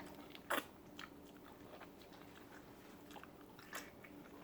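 Faint mouth sounds of a person biting and chewing soft fruit, mango: a few scattered short clicks and smacks, the loudest about half a second in.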